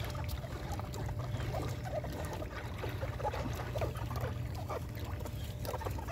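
Outdoor shoreline ambience: a steady low wind rumble on the microphone, with faint trickling and lapping of shallow water and small scattered clicks.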